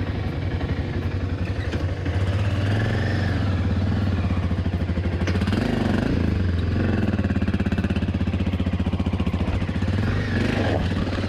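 Single-cylinder dual-sport motorcycle engine pulling at low revs in low gear up a slippery mud slope, the revs rising and falling with the throttle. It gets louder about two seconds in, with one sharp click near the middle.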